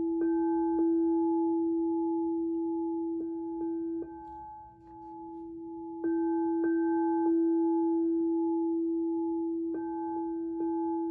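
Singing bowls ringing: a steady low bowl tone sounds throughout while higher-pitched bowls are struck every second or two, each strike ringing on. The low tone fades briefly near the middle, then swells back.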